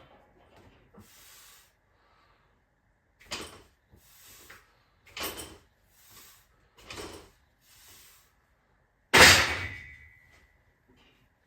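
Loaded safety squat bar during spinal twists: a run of short rustling, rattling sounds roughly a second apart, then a loud metal clank with a brief ringing note near the end.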